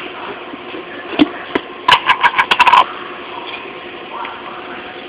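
A container of turtle food sticks shaken: two single clicks, then a quick burst of about nine sharp rattles over about a second. A steady low hum runs underneath.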